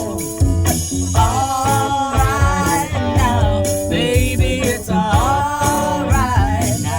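Classic 1970s rock recording playing: drums and bass under a lead line that bends and slides in pitch.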